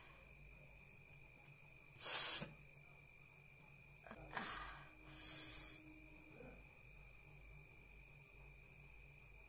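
A woman's sharp, loud nasal burst about two seconds in, then a few shorter sniffs and a breathy rush of air through the nose, as she tries to sneeze from inhaled red chili powder. A faint steady high whine runs underneath.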